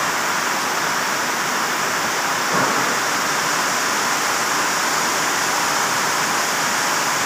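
Heavy tropical downpour: a steady, dense rush of rain falling on and around a corrugated metal-roofed shed.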